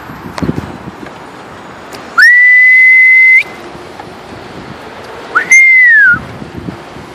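A person whistling loudly at a flock of pigeons, twice on one high note. The first whistle is long and steady and ends with a quick upward flick. The second is shorter and rises then falls.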